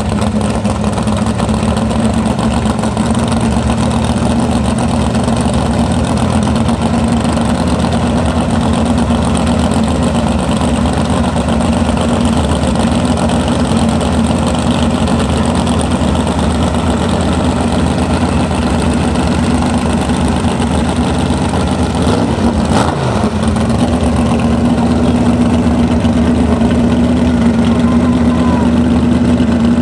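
Supercharged engine of a Hallett Barron Sprint flat-bottom race boat idling loudly and steadily. About three-quarters through there is a single knock and the engine's pitch dips briefly, then recovers.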